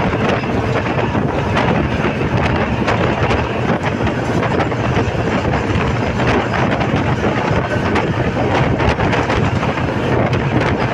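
Steady running noise of a bus driving across a bridge, tyre and engine rumble mixed with wind buffeting the microphone at an open window.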